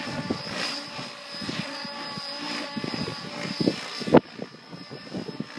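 Electric Mikado Logo XXtreme 800 RC helicopter flying overhead, its rotors and motor making a steady high whine, with wind buffeting the microphone. One sharp, loud thump about four seconds in.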